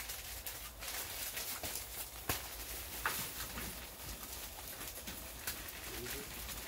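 Potting soil pouring from a plastic bag into a plastic storage tote, with the bag crackling and the soil rustling, and two knocks about two and three seconds in.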